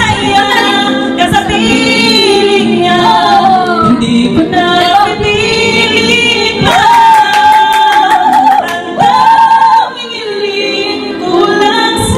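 Women singing karaoke into microphones, several voices at once, with a long held high note around the middle.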